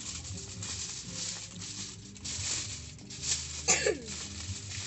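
Aluminium foil crinkling as it is folded and pressed flat by hand into a packet. Near the end, a short high cry falling in pitch cuts in over it and is the loudest thing.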